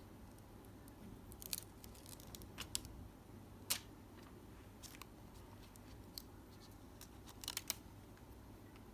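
Scattered sharp clicks and snips in small clusters from small plastic items being handled, with the loudest click about halfway through and a quick run of clicks near the end.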